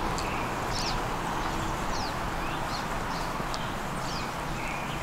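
Small birds chirping, with many short, high calls, some sliding down in pitch, over a steady background hiss.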